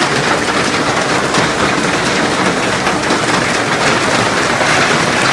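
Heavy rain pouring down in a hailstorm: a loud, steady hiss of countless drops pelting the hail-covered ground.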